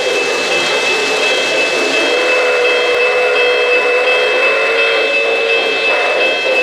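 Steady mechanical whirr and hiss of O-gauge model trains running on the layout, with a wavering hum and a faint high tone that repeats about once a second.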